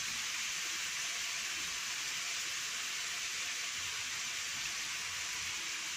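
Beef cubes sizzling steadily in a frying pan, left unstirred to brown in oil and the juices they have released.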